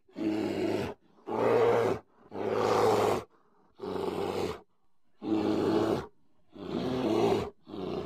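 A large animal's growling roars, about seven in a row, each under a second long, spaced roughly a second apart with short silences between.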